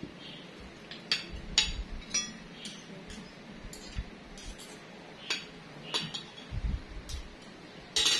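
Metal spoons and forks clinking and scraping against ceramic dinner plates as people eat, in a dozen or so irregular sharp clinks. A dull low thud comes about six and a half seconds in.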